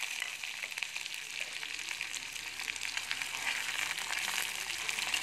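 Sliced onions and chillies sizzling in hot oil in a kadai: a steady crackling hiss, with a metal spoon stirring them through the oil.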